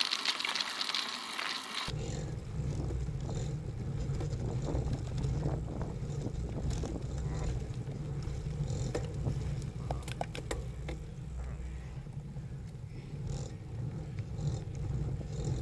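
Wind and road rumble on a bicycle-mounted camera's microphone while riding on a road. About two seconds in, the sound changes sharply from a high hiss to a steady low rumble, with a few sharp clicks around the middle.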